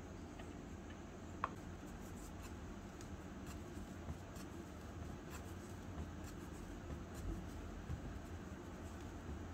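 Fingers pressing and rubbing a small lump of floured dough against a fabric mat, giving faint scratchy rubbing with scattered light ticks. One sharp click about a second and a half in, over a steady low hum.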